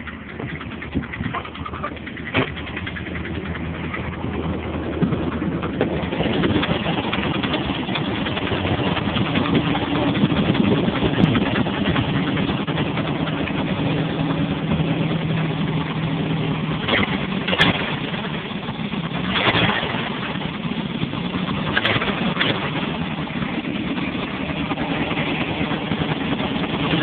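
Volvo 740 Turbo's engine running steadily, getting louder over the first several seconds, with a few brief sharp noises later on. These are the weird engine noises that the owner is recording.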